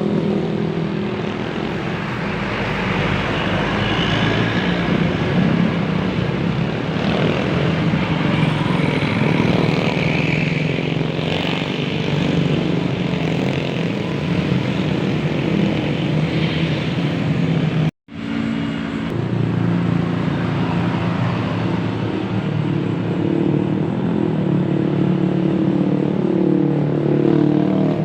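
Indonesian buses sounding telolet basuri multi-tone air horns, held notes stepping from pitch to pitch in a tune over the buses' engine noise. The sound drops out for a moment about two-thirds of the way through, then the horns carry on.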